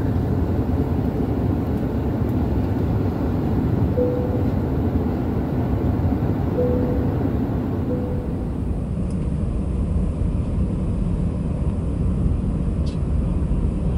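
Steady low rumble of a jet airliner's engines and airflow heard inside the passenger cabin during the climb after takeoff. Three brief faint tones sound about four, six and a half and eight seconds in.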